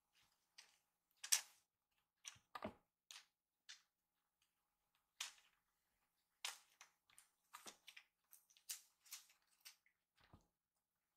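Faint, irregular taps, scuffs and rustles of two kittens pouncing on and batting at a feather cat-teaser toy over a fabric-topped stool. The sharpest tap comes about a second in and a duller thump a little later.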